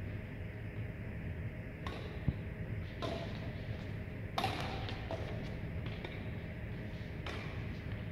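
Badminton rally: a handful of sharp, separate strikes of rackets on the shuttlecock, a few seconds apart, over a steady low hum.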